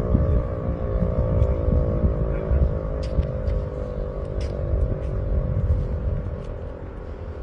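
Outdoor warning siren running down at the end of its fire-alarm signal, its tone slowly falling in pitch and fading, under a loud, uneven low rumble.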